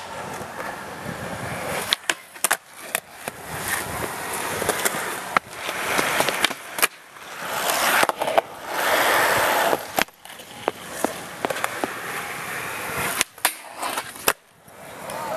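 Skateboard wheels rolling on concrete, a noisy rumble that swells and fades, broken by scattered sharp clacks of the board popping, landing and hitting ledges.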